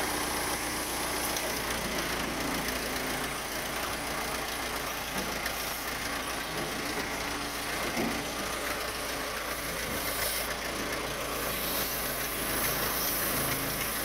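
Case 580E backhoe loader's engine running steadily.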